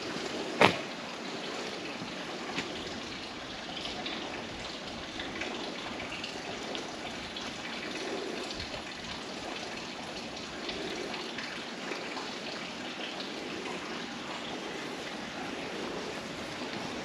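Steady rain, with faint scattered ticks of drops and one sharp click about half a second in.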